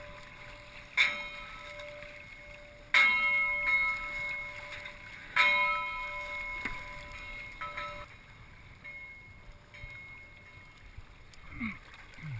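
A bell struck four times at uneven intervals, each strike ringing on and slowly fading, the last one weaker.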